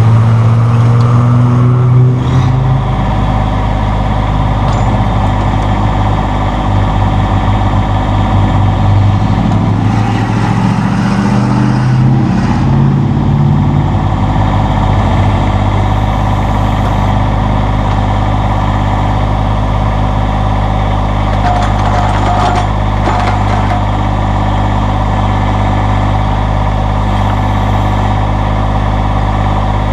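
Massey Ferguson GC1720 subcompact tractor's three-cylinder diesel engine running at raised speed while the backhoe is worked, its note shifting under hydraulic load in the first few seconds and again around the middle, then settling steady. A few faint knocks come through around the middle.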